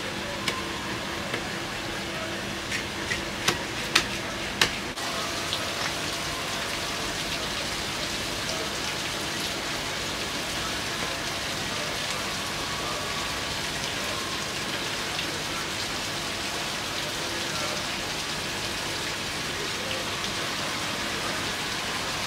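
A cleaver chopping fish on a thick wooden chopping block: several sharp knocks in the first five seconds. After that comes a steady, rain-like hiss.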